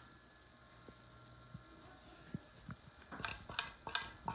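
Faint steady hum as a 52-inch Harbor Breeze ceiling fan, just switched off, winds down, then a quick run of clicks and knocks about three seconds in.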